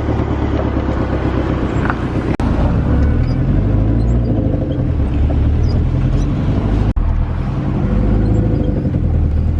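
Steady road and engine noise inside a moving taxi, heaviest in the low end, broken by two brief drop-outs.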